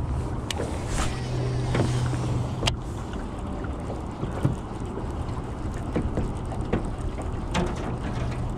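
Steady low hum of a fishing boat's motor, louder for the first couple of seconds, with scattered light clicks and taps while a baitcasting reel is wound in.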